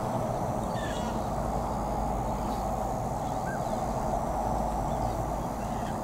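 A few faint, short calls from waterfowl (ducks and swans) on a pond, over a steady even rushing background.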